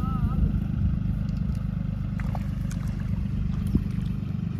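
John Deere tractor's diesel engine running at a steady, even speed.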